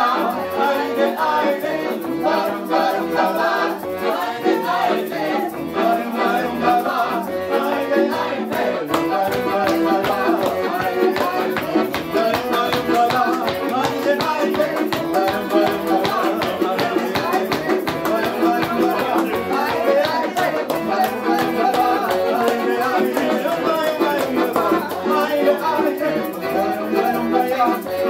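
A small acoustic folk band playing live, with accordion, acoustic guitar and fiddle and voices singing along to a steady beat.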